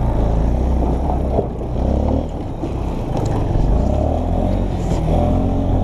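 Small single-cylinder four-stroke ATV engine running steadily while the quad is driven over rough, rocky trail, its pitch rising and falling a little with the throttle.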